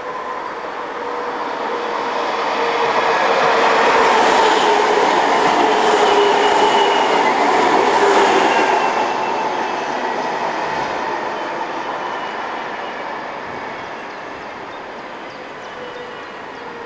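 DÜWAG low-floor tram passing close by: rolling noise from its wheels on the rails, with a whine underneath, swells to a peak about four to eight seconds in and then fades as it moves away.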